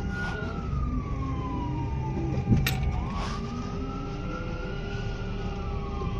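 Ambulance siren in wail mode, its pitch slowly rising and falling about once every four to five seconds, heard from inside a vehicle's cab over a low engine rumble. A sharp click about two and a half seconds in.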